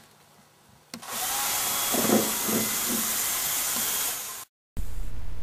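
Cordless power drill running in one steady whir for about three seconds, starting about a second in and cutting off abruptly.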